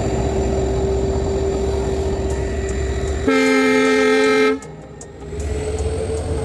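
Train running with steady rumble and a held whine, then one loud train horn blast about three seconds in, lasting just over a second and cutting off abruptly.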